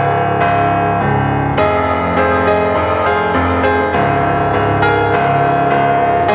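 Background music led by a piano, with notes struck at a steady pace over sustained chords.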